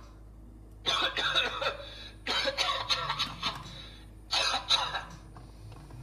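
Deadpool Premium Interactive Head's speaker playing three short, throaty vocal noises, taken by the tagger for coughing, about a second, two seconds and four seconds in.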